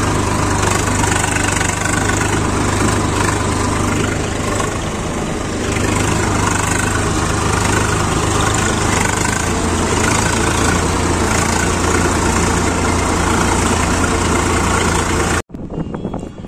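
Swaraj 855 tractor's three-cylinder diesel engine running steadily under way, heard from the driver's seat. It cuts off suddenly near the end.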